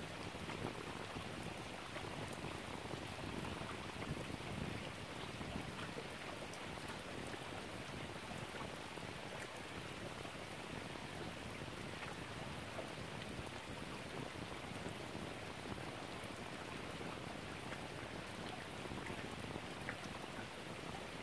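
Steady rain falling, an even hiss with scattered small raindrop ticks.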